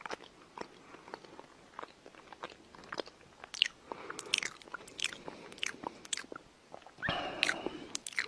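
A corgi chewing at its paws: a run of irregular wet clicks and smacks from its mouth, busier in the middle and louder for a moment near the end.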